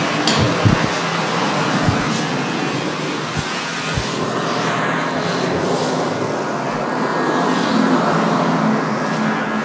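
Steady, loud rushing noise, like an air blower, with a few short low thumps in the first few seconds.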